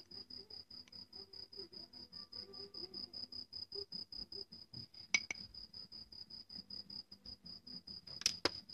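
A spoon clinking against a small glass bowl while baking soda is spooned in: a couple of sharp clinks about five seconds in and two more near the end. Under it, a steady high-pitched chirping pulses about six times a second.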